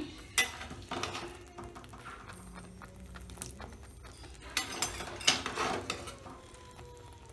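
Metal spoon and bowl clinking against a metal kadai as sautéed onion, capsicum and mushroom are tipped into thick gravy. There are a couple of light clinks in the first second and a louder cluster of clinks about five seconds in.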